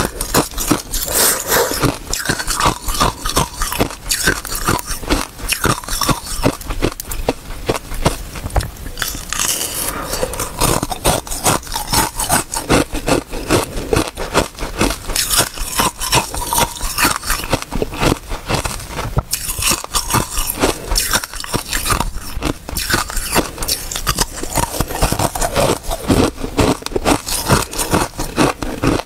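Ice frozen with basil seeds being bitten and chewed close to a clip-on microphone: rapid, continuous crunching.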